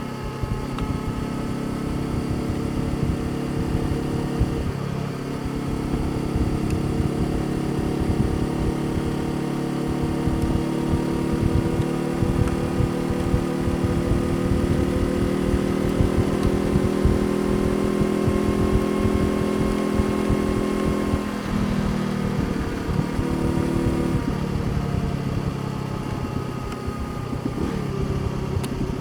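Honda CBR500R's parallel-twin engine running under way, its pitch climbing slowly and steadily for about fifteen seconds. About two-thirds of the way through the pitch drops sharply, then shifts a few more times. A constant low wind rumble sits under it.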